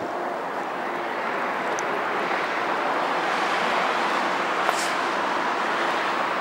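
Steady hiss of road traffic passing on a nearby main road, swelling slightly a couple of seconds in, with a faint tick or two.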